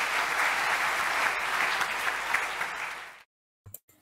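Recorded applause track: a large audience clapping, played back as a sound effect. It fades and stops about three seconds in, and a couple of faint clicks follow.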